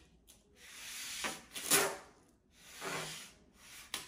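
A hand rubbing and smoothing a strip of masking tape down onto a laminate worktop, in two long strokes that each build and then stop sharply, and a shorter stroke near the end.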